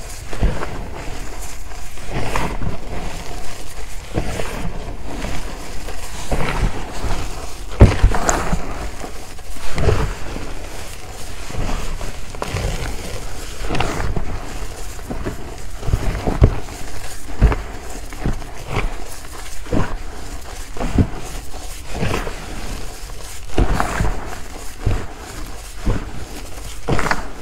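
Hands squeezing and crushing a heap of powdered gym chalk and cornstarch, giving irregular soft crunches a few times a second, the loudest about eight seconds in.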